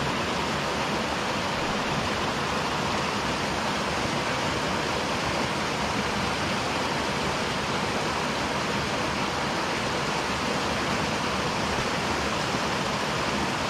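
Small mountain-stream waterfall pouring into a pool: a steady, unbroken rush of water.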